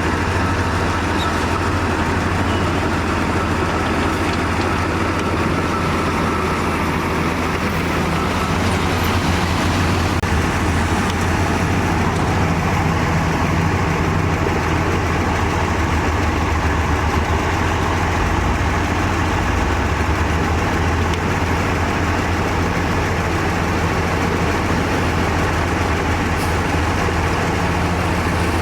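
Heavy diesel construction machinery running steadily under load, a deep engine drone that shifts slightly in pitch, from the bulldozer or dump truck at work.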